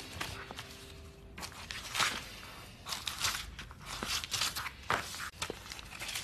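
Paper being handled at a desk: an envelope opened and a letter pulled out and unfolded, a run of short, crisp rustles, the loudest about two seconds in.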